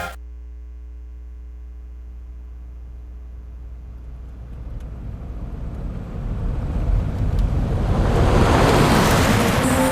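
Low steady rumble with a faint held drone, then a rush of noise like wind swelling louder over several seconds and peaking near the end.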